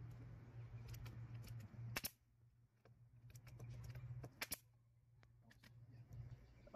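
Pneumatic brad nailer firing brads into a wooden frame: one sharp shot about two seconds in and two quick shots a little past the middle, with lighter clicks between them over a steady low hum.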